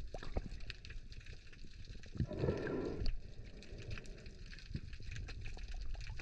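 Underwater sound picked up by a submerged camera: a low, muffled rumble of water with many scattered faint clicks and crackles, and a brief louder swell of noise about two and a half seconds in.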